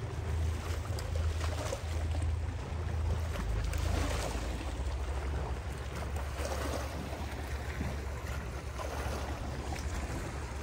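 Wind rumbling on the microphone, with small waves washing against the rocks of a jetty.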